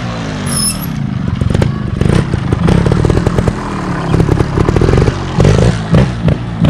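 Trials motorcycle's single-cylinder engine revving for a wheelie, its pitch rising and falling, then blipped in several short bursts near the end.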